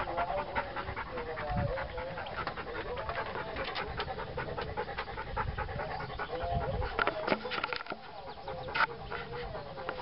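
A dog panting close by, a fast run of quick breaths.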